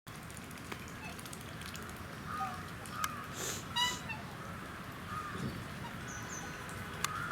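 Black swans calling: a few short, high honks a second or so apart, the clearest and loudest a brief bugle-like note just before the middle.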